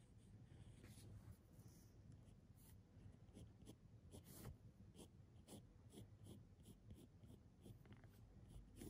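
Mechanical pencil scratching on paper in faint, short strokes, about two a second.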